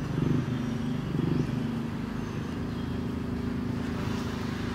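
A steady low engine hum, like a motor vehicle idling, with a person talking over it for the first second and a half.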